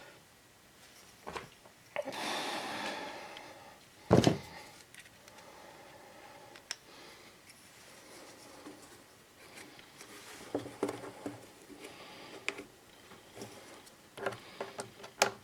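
Small handling noises from fitting a fuel filter and rubber fuel line by hand: scattered clicks and light taps, a short rustle near the start, and one sharp knock about four seconds in.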